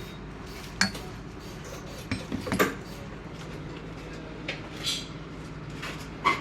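Metal tools and parts clinking and knocking against each other several times while a paramotor clutch is assembled, over a steady low hum.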